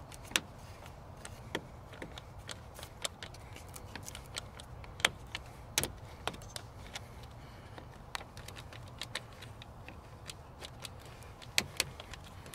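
Scattered sharp metallic clicks and ticks from a screwdriver turning the screw of a metal hose clamp on a radiator hose, loosening it, over a low steady hum.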